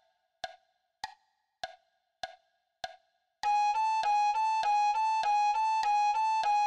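For the first three seconds or so, sharp ticks keep the beat, about one every 0.6 s. Then a recorder melody starts, switching quickly back and forth between G♯ and A, about three notes a second, which is the hard G♯–A fingering passage on alto recorder.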